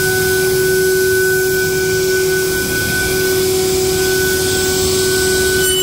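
CNC router spindle running at a steady high speed, a held whine over a constant rushing noise. Near the end a cluster of higher tones joins in.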